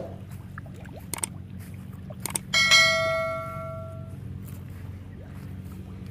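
A subscribe-button sound effect: two short clicks, then a bell chime about two and a half seconds in that rings and fades over about a second and a half, over a steady low hum.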